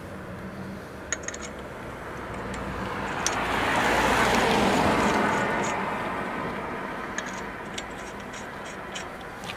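A passing vehicle swells up and fades away over several seconds, loudest about halfway through. Lug nuts click faintly as they are spun onto the wheel studs by hand.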